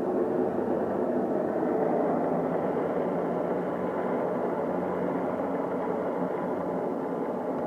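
Trail cable car's pulley wheels running steadily along the steel cable as the empty car travels away across the river, heard through the cable and its anchor.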